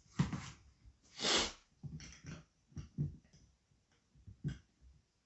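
A lemon being sliced with a knife on a cutting board: a few soft cuts and light knocks. There is a short breath of noise about a second in.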